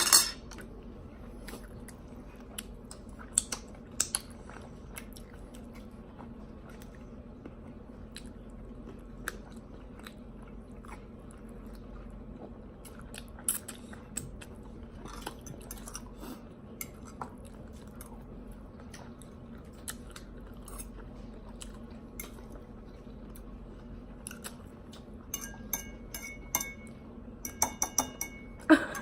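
Close-up eating sounds: chewing and biting, with scattered sharp clicks of utensils against dishes. About 25 seconds in comes a quick run of ringing clinks.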